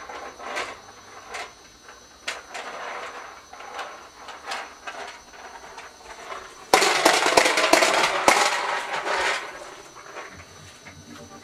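Push-along corn popper toy rolling, its plastic balls popping against the clear dome: scattered pops at first, then a dense run of rapid popping about seven seconds in that lasts a couple of seconds.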